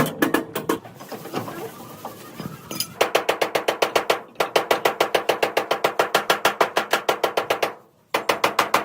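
Rapid, evenly spaced striking, about eight blows a second, in long runs. The strikes break off for a second or two near the start and drop out briefly near the end.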